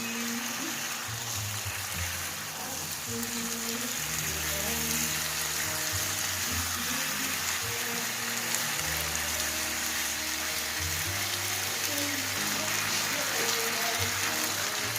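Food sizzling steadily in hot oil in a pan, with background music playing low notes underneath.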